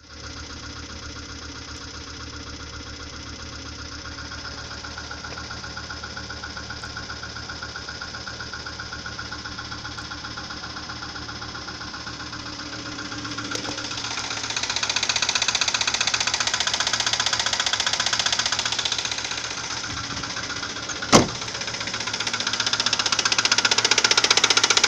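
Audi 80 2.3 NG five-cylinder petrol engine running with a loud knock, which came on suddenly and whose cause is unknown. It gets louder about halfway through, eases off, and picks up again near the end. A single sharp click sounds shortly before the end.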